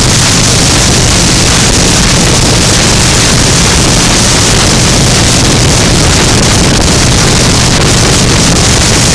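Loud wind rush on the microphone of a motorcycle cruising at speed, with a steady low engine drone underneath.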